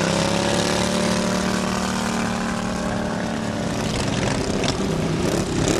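Racing lawn mowers' small engines running hard, their pitch sagging slightly over the first few seconds.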